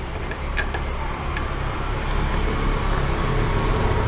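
Steady low hum and rumble of background noise, with a few faint clicks in the first second or so from a screwdriver working the screw that holds the audio amplifier IC to its heat sink.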